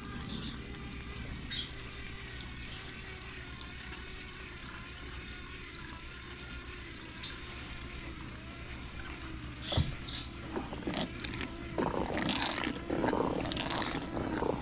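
Small portable mini washing machine running its spin cycle with laundry inside: a steady motor hum with water trickling, and louder, uneven knocking and water sounds in the last few seconds.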